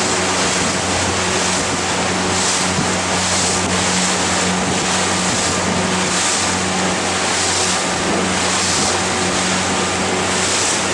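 Steady low hum of a boat's engine under a hiss of water washing and splashing along the hull, swelling and fading about every second, with wind on the microphone.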